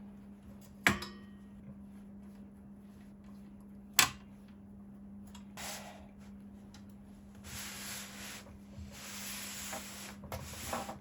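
Parts of a PC build being handled: two sharp clicks a few seconds apart, then several stretches of rubbing and sliding.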